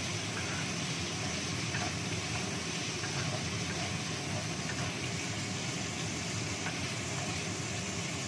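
Small shrimp sizzling in oil in a nonstick wok as a wooden spatula stirs them, over a steady machine hum.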